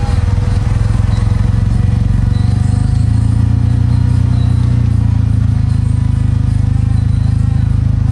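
Honda Civic's engine running with a steady low rumble and an even, rapid pulse.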